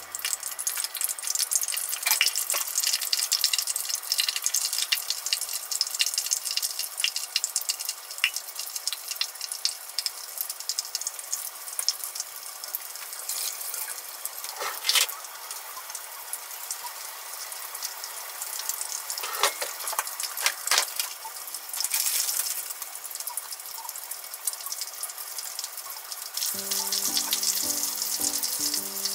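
Bread-crumbed shrimp deep-frying in a pan of hot oil: a steady sizzle scattered with sharp crackles and pops. Background music comes in near the end.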